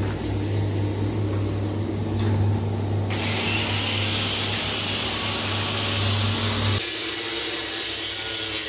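Electric motors of a rice-husk-fuelled furnace running, its husk-feed drive and blower, with a steady low hum. A loud rushing hiss joins about three seconds in, and hum and hiss both cut off suddenly near the end.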